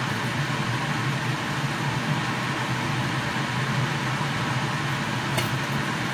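Steady hiss of a pot of water boiling under a stainless-steel lid on a lit gas burner, with one small click about five seconds in.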